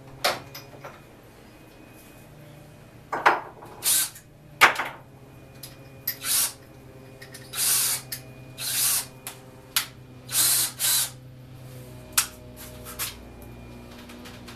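Power drill boring holes up through a plywood bench top for carriage bolts, run in a series of short bursts, about ten, each under a second, with pauses between.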